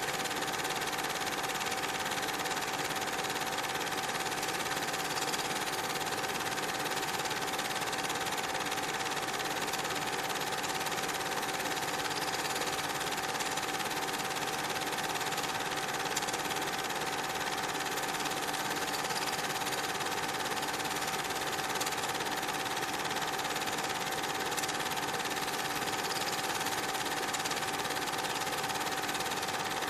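Cine film projector running steadily: an even mechanical whirr with a constant hum and hiss, the noise of the projector's mechanism picked up while the silent film was transferred.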